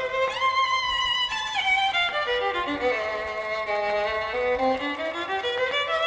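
Instrumental passage of a 1970s Korean folk-pop song: a violin melody over a gentle accompaniment, slow held notes moving up and down in steps.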